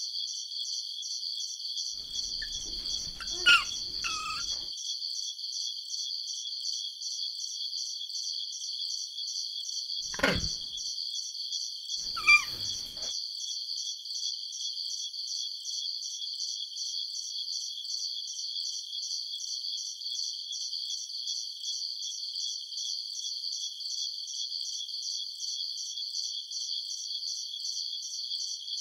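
Crickets chirping in a steady, fast pulsing trill that never lets up. Three short, sharp sounds break in above it, one a few seconds in and two close together about ten seconds in.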